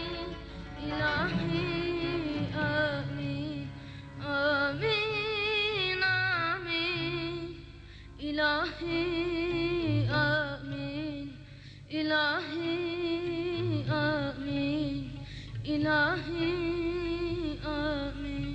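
A solo singer performing a slow melody with heavy vibrato over instrumental accompaniment, in phrases of three to four seconds with short breaks between them.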